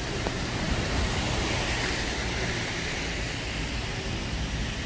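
Steady hiss of traffic tyres on a rain-soaked road, swelling once about two seconds in as a vehicle passes.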